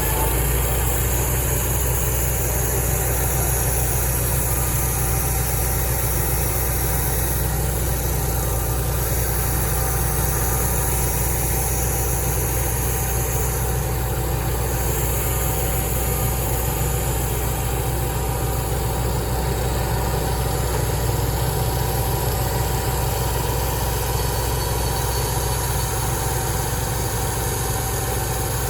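An engine idling steadily, with a deep, unchanging rumble and no revving or load.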